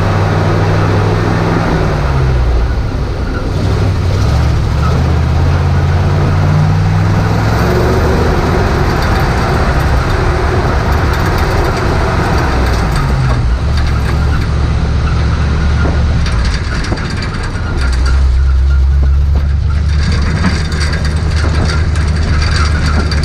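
1969 Chevrolet dump truck's fuel-injected 427 big-block V8 running under load as the truck drives along a gravel road. The engine note drops briefly about two seconds in and again about thirteen seconds in.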